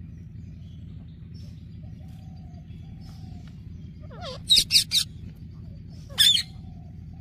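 Small pet parrots giving loud, shrill squawks, three in quick succession about four and a half seconds in and one more near six seconds, with faint chirps between. A steady low hum runs underneath.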